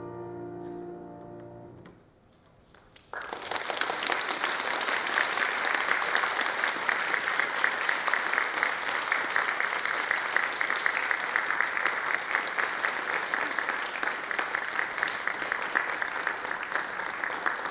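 A grand piano's final chord ringing and dying away, a second of hush, then the audience breaking into steady applause about three seconds in.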